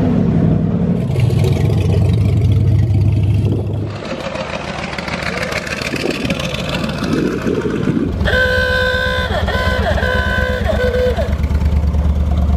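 Car engines rumbling at idle. The sound changes abruptly about four seconds in. About eight seconds in, a car horn sounds for roughly three seconds in several changing notes over the engine rumble.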